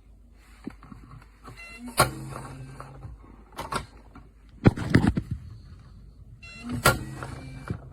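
Biometric pistol safe's electronic lock working twice: a short beep, a sharp click, then the latch motor running for about a second. Between the two, knocks and clatter of the steel lid being shut and handled.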